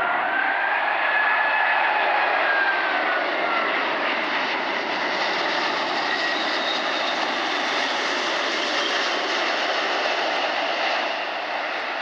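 Airbus A380's four Rolls-Royce Trent 900 turbofans on final approach, passing low overhead: a steady jet rush with whining tones that bend down in pitch over the first few seconds, easing slightly near the end.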